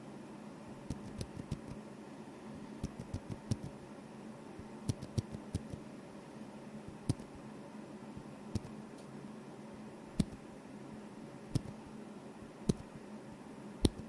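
Drop Shift mechanical keyboard with foam in the case being typed on, quiet clacking keystrokes. There are a few quick runs of keystrokes in the first half, then single keystrokes about every one to one and a half seconds.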